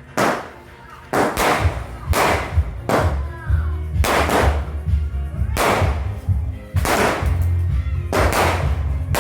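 Small-caliber consumer firework cake (Red Apple Fireworks Ghost, 36 shots) firing its shots one after another. About one sharp bang a second, sometimes two in quick succession, each with a crackling tail.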